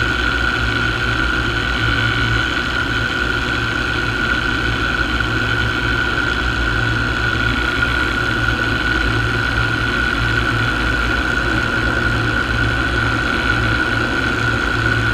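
Paramotor engine and propeller running steadily in cruise flight: a constant drone with a steady high whine over a low, throbbing rumble.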